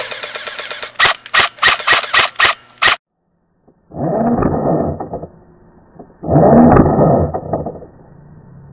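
A quick series of about seven sharp cracks over two seconds, airsoft gun shots fired one after another. The sound then cuts out for a moment, and two loud, muffled rushing noises of about a second each follow.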